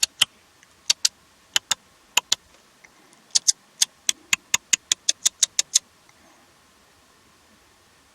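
A series of sharp, high clicks: spaced pairs at first, then a quicker run of about three a second that stops about six seconds in.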